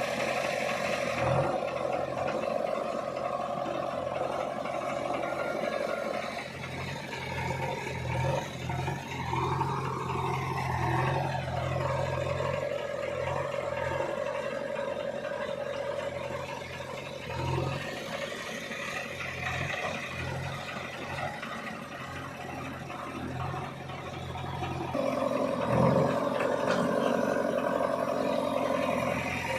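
Diesel engine of a JCB 3DX backhoe loader running under working load, with a steady whine. The pitch rises and falls about ten seconds in, and the sound grows louder again near the end.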